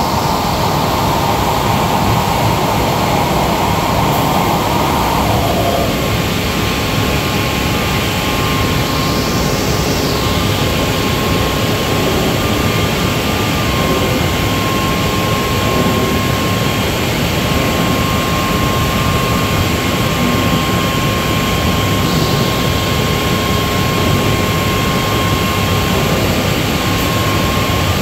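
SCM Tech Z2 CNC woodworking machining centre running, a steady loud machine noise with a constant whine. A higher whine rises and falls about ten seconds in and again briefly near the end.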